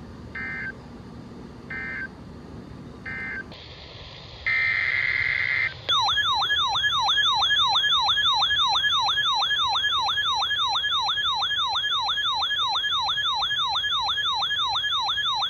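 Emergency alert tones from a weather radio broadcast. First come three short digital data bursts about a second apart, typical of the SAME end-of-message code closing the previous message. Then a brief steady tone, then a loud siren-like warbling alert tone that sweeps up and down about three times a second for about ten seconds, signalling the next warning.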